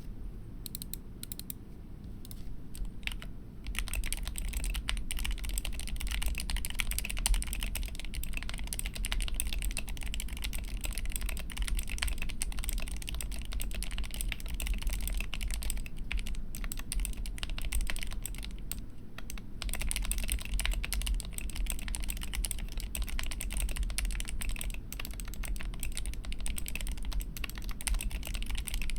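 Typing on a GK61 optical mechanical keyboard with lubed Gateron Yellow linear switches. A few scattered keystrokes at first, then fast continuous typing, with a short pause about two-thirds of the way through.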